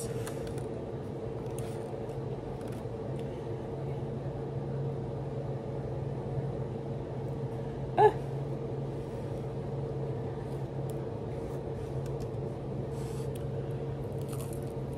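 Soft chewing and small mouth sounds of someone eating chicken wings, over a steady room hum. About eight seconds in there is one short vocal sound, like a brief 'mm'.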